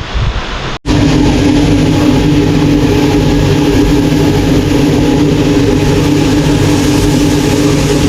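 Under a second of rushing wind-and-water noise cuts off abruptly. A motor vehicle's engine then runs with a loud, steady drone at an even pitch.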